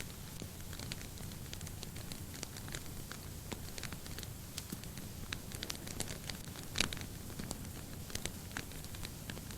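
Wood fire in a fireplace burning with a steady low rumble and irregular crackles and pops, one louder pop about seven seconds in.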